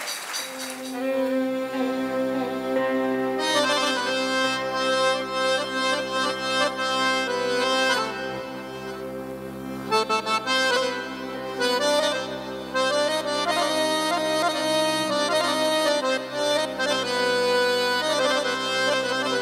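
Arabic-style ensemble starting an instrumental passage about a second in, with an accordion carrying the melody over violins and the rest of the band. There is no singing yet.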